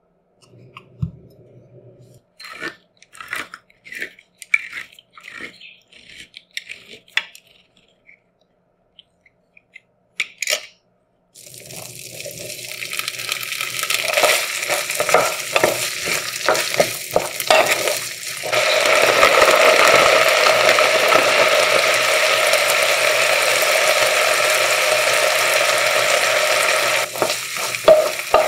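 Dishes and utensils clinking and tapping, then food starts frying in a hot pan. The sizzle builds over several seconds with a utensil tapping and scraping in the pan, then settles into a loud steady sizzle about two-thirds of the way in.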